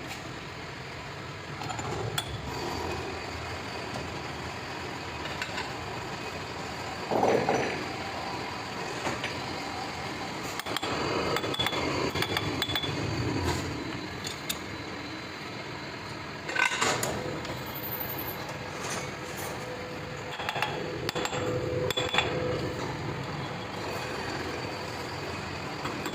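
Metal parts clinking and knocking now and then over a steady workshop background noise, with a few louder clanks about a third and two-thirds of the way through.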